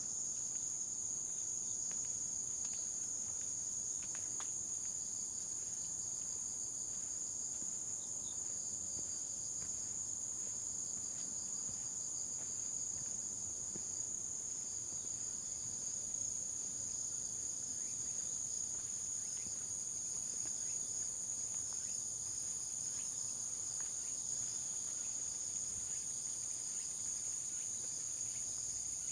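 Insects chirping in a steady, unbroken high-pitched chorus.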